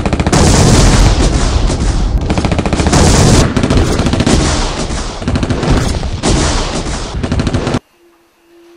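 Rapid machine-gun fire, a dense unbroken volley of shots that cuts off suddenly near the end.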